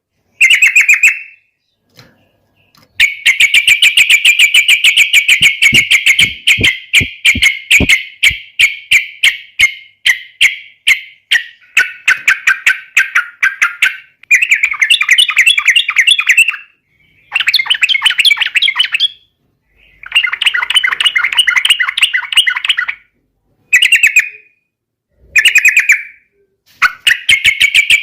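Yellow-vented bulbul singing: runs of rapid notes, first one long run of about nine seconds, then a string of shorter bursts with brief pauses between them.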